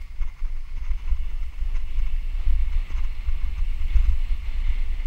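Wind buffeting the microphone of a helmet-mounted camera on a mountain bike descent: a steady, gusting low rumble. Behind it is a hiss of tyres on a dirt trail with a few faint clicks.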